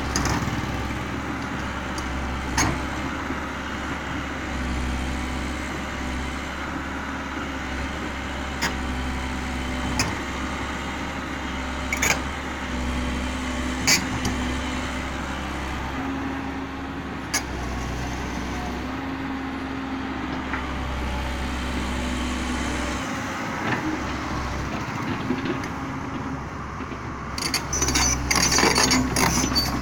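Komatsu PC130 hydraulic excavator's diesel engine idling steadily, with sharp clicks every few seconds and a louder rattling clatter near the end.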